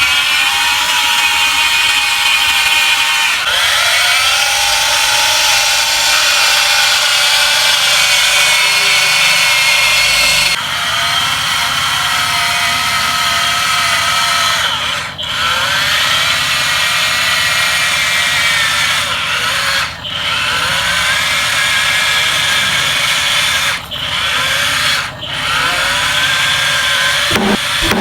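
Small electric motors and gear trains of toy RC vehicles whining. The pitch rises and falls as they speed up and slow down, with several abrupt breaks.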